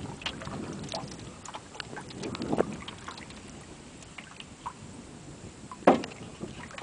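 Canoe paddling: uneven water splashing and dripping with small scattered clicks, a louder swell of water about halfway, and one sharp knock near the end.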